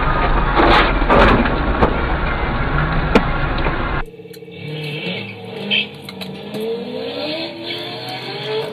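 Dashcam road and traffic noise, with a sharp knock about three seconds in. Then, after an abrupt change, Chevrolet Corvette V8 engines revving, rising in pitch as the cars accelerate away from a light.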